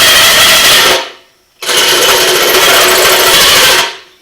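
Power drill running a hole saw into the thin sheet metal of a running board, cutting an access hole. It runs in two long bursts with a short pause about a second in.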